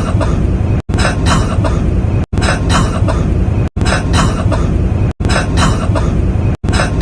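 A man coughing: the same short clip of a couple of coughs repeated about every second and a half, each repeat broken by a brief dropout at the join, over a steady low rumble.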